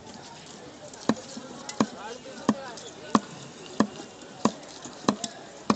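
Cleaver chopping fish on a wooden block: sharp, evenly paced chops, about one every two-thirds of a second, starting about a second in.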